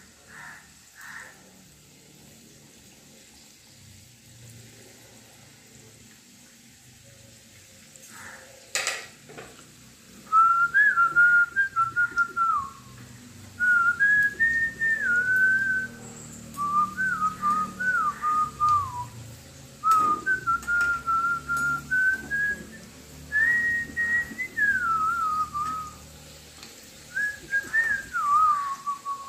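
A person whistling a tune in short melodic phrases, starting about ten seconds in, over the faint sizzle of samosas deep-frying in hot oil.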